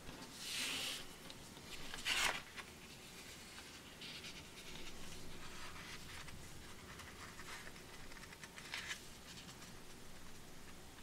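A sheet of paper being folded and creased by hand. It rustles, with the loudest sharp crinkle about two seconds in, then fingers rub along the folds, and there is another short crinkle near the end.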